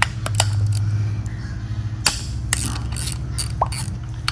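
A spark plug socket and extension working in a plug well of a Toyota 2JZ-GTE cylinder head as a spark plug is unscrewed: a handful of irregular sharp metallic clicks and scrapes over a steady low hum.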